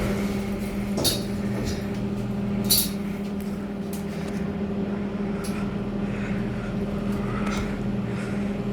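Steady hum of a Kone lift's machinery, with two sharp clicks, about a second in and again near three seconds in.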